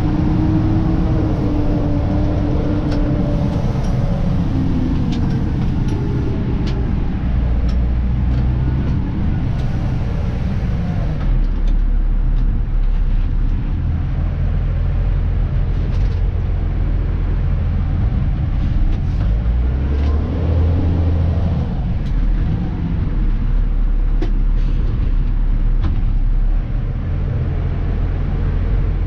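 Dennis Elite 2 refuse truck's diesel engine and drivetrain running under way, pitch rising and falling, with scattered clicks and rattles and two short hisses early on.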